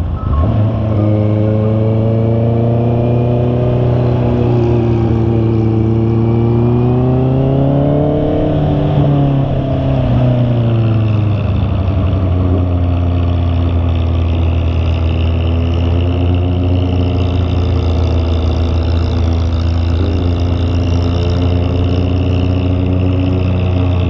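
Honda CB650R's inline-four engine running under way. Its note dips briefly at the start, rises and falls with the throttle through the first half, then holds a steady, lower pitch for the second half.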